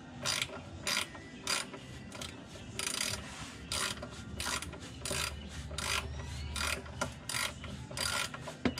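Socket ratchet wrench clicking in short runs, about two a second, as it is swung back and forth to unscrew a car's oil drain plug.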